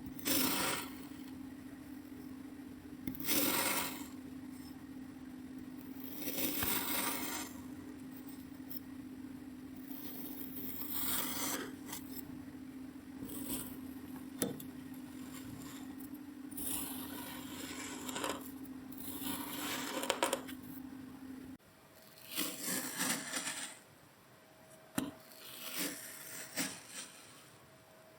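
Kinetic sand being cut and crushed: repeated scraping strokes every second or two, with a steady low hum behind them until about two-thirds through, then quicker strokes over a quieter background.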